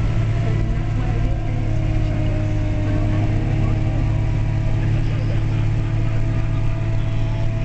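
John Deere 4700 self-propelled sprayer driving down the road, heard from inside the cab: the diesel engine drones steadily at travel speed, with a strong low hum and a faint steady whine above it.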